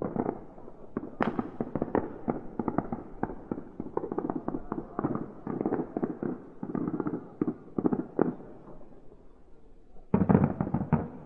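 Fireworks going off: a rapid, dense run of bangs and crackles, with a louder cluster of bangs near the end.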